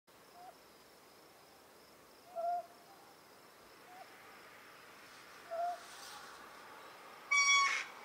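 Ryukyu scops owl calling: a short, low hoot repeated about every one and a half seconds, four times. Near the end a louder, higher call with several overtones lasts about half a second.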